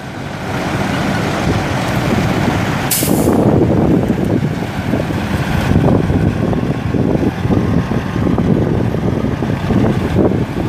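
A 2006 Kenworth T600's Caterpillar C15 Acert diesel engine running steadily, with a short, sharp hiss of air let out of the air-brake system about three seconds in.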